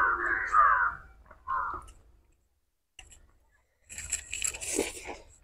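Close-miked eating of chicken biryani by hand: two short sounds in the first two seconds as the rice is gathered with the fingers, then, after a pause, a mouthful taken and chewed.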